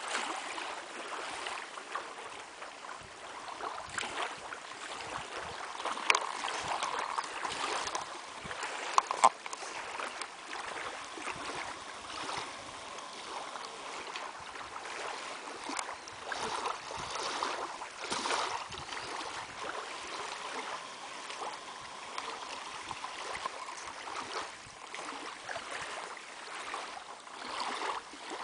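Lake water lapping and sloshing in small waves, an uneven wash that swells and falls, with a few sharper slaps about six and nine seconds in.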